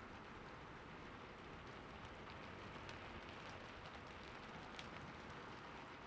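Faint, steady soft rainfall: an even hiss with scattered single drops ticking.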